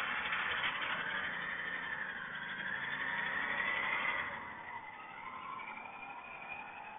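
Motor vehicle noise with a slowly rising and falling tone, heard through a CCTV camera's built-in microphone, which cuts off the high frequencies. It gets quieter about four seconds in.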